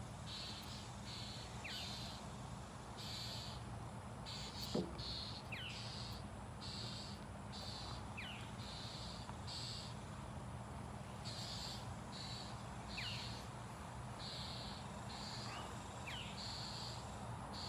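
Backyard ambience: an insect calling in short repeated pulses of high buzzing, about one a second, with a bird giving brief falling notes every few seconds. One short, louder call rises in pitch about five seconds in, and a low steady hum lies underneath.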